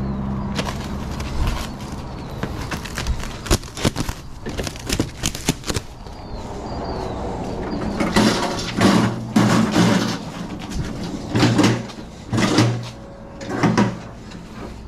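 Metal hand truck knocking and clanking as it is handled, then rattling in several loud bursts as it is wheeled over a concrete walkway. A low engine hum fades out about a second and a half in.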